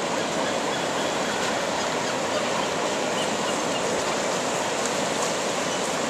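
Ocean surf breaking and washing up a sandy beach, a steady rushing noise that never lets up.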